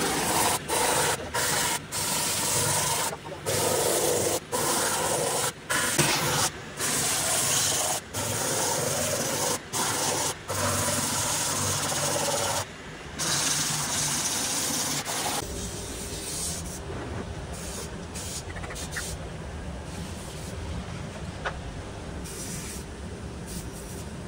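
Harsh abrasive rasping of tractor-tire rubber, as when a damaged tire is buffed before patching, broken by several abrupt gaps. After about fifteen seconds it drops to a quieter hiss over a low rumble.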